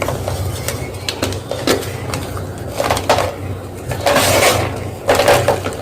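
Hard gym chalk crunching in a string of irregular short crunches, with a longer crunch about four seconds in and another just after five seconds.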